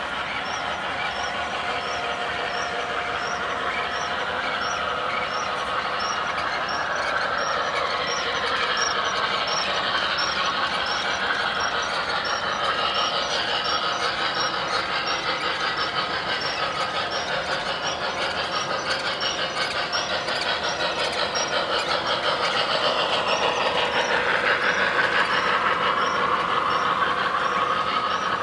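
O-gauge model trains running on the layout: a steady rolling rumble of wheels and motors on the track, with tones that glide up and down and a faint regular ticking about twice a second. It grows louder near the end as a train passes close.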